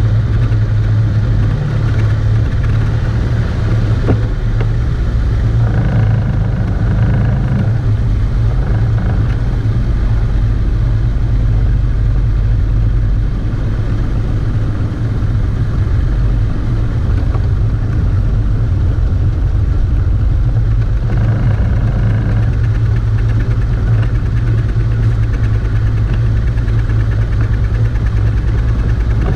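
Outboard motor on a small Carolina Skiff running steadily underway, driving the boat at a constant speed with a steady low drone.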